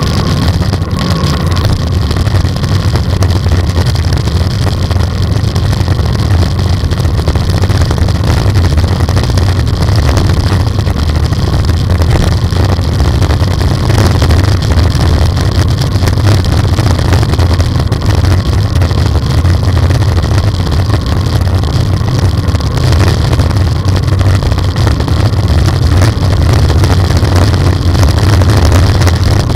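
Wind buffeting on a bike-mounted camera's microphone while riding: a loud, steady low rumble with no breaks.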